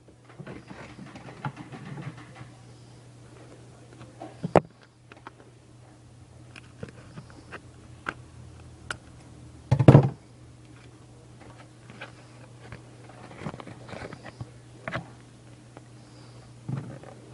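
Bakugan toy packaging being handled and opened by hand: scattered rustles and clicks, with a louder thump about ten seconds in, over a steady low hum.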